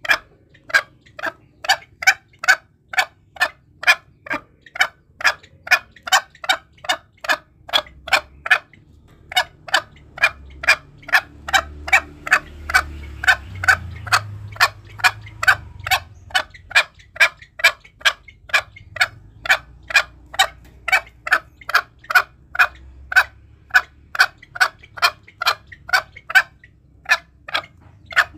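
Green junglefowl calling: short, sharp clucks repeated about two to three a second, with brief breaks about nine seconds in and near the end. This is a lure call for drawing junglefowl in.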